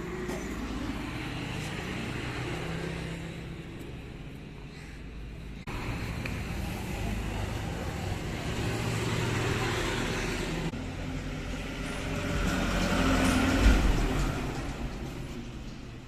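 Road traffic passing: motor vehicles swelling in and out, the loudest pass about three-quarters of the way through.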